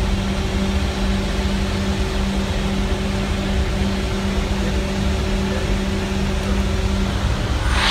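Steady drone of a C-130J's four turboprop engines and propellers heard inside the cockpit: a constant low hum over an even rushing noise.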